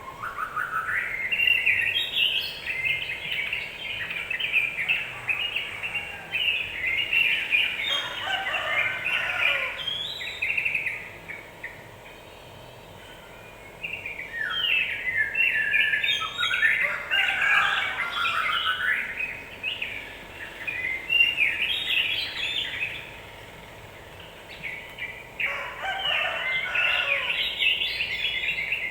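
Yellow-vented bulbul (trucukan) singing a rapid, continuous chattering song in three long bouts, broken by short pauses about 12 and 23 seconds in.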